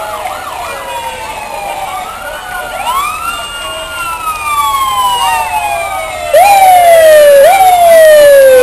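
Several fire truck sirens wailing together, their pitches rising and falling out of step. About six seconds in, a much louder siren joins close by, rising sharply and sliding slowly down, twice.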